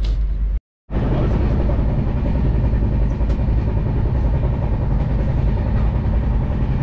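Steady running rumble of a passenger train in motion, heard from inside the carriage, broken by a brief total dropout just over half a second in.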